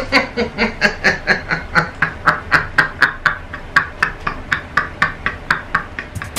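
A man giggling in a long, rapid run of short pulses, about four or five a second.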